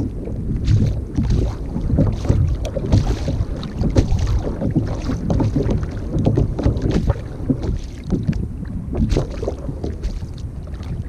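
Wind buffeting the microphone of a camera on a sit-on-top kayak at sea, a steady low rumble, with water lapping at the hull and scattered small knocks and splashes.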